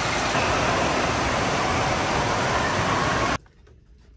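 Indoor wave pool surf: waves churning and breaking in a large hall, a steady loud rushing noise that cuts off suddenly about three and a half seconds in.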